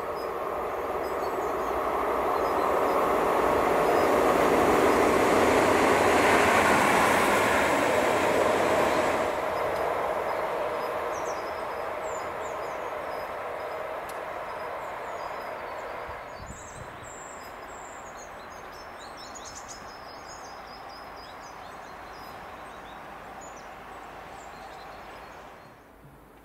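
Electric locomotive running by at speed: a rushing rail noise with a steady whine that builds to its loudest about six seconds in, then fades as it moves away. Birds chirp as it recedes.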